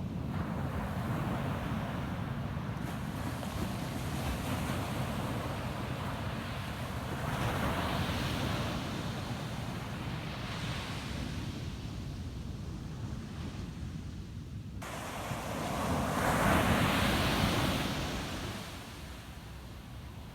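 Ocean surf breaking on a beach: a continuous wash of waves, with swells about 8 s and 11 s in and the loudest wave breaking and rushing up near the end. A low rumble of wind on the microphone runs underneath.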